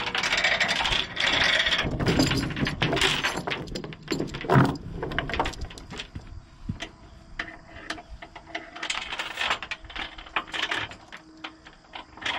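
Steel tie-down chains being handled and threaded to secure a dozer on a trailer: many short metallic clinks and knocks, the loudest about four and a half seconds in, growing fainter over the second half.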